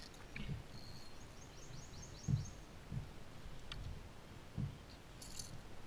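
A songbird singing a quick run of repeated high chirps. Under it come four low thumps, the loudest a little past two seconds in.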